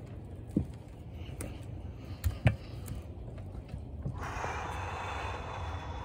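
A person's breathing in an ice bath: a long, noisy breath out starting about four seconds in, over a steady low rumble, with a few short knocks earlier on.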